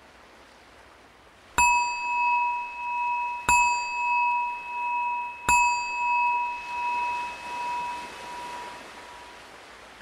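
A meditation bell struck three times about two seconds apart, each strike ringing on into the next and the last fading slowly away, signalling the end of the silent practice. Underneath is a faint steady wash of ocean waves.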